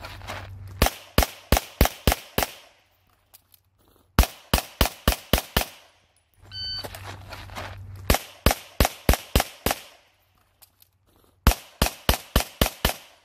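CZ Shadow 2 9mm pistol fired in four quick strings of about six to eight shots each, with short pauses between strings.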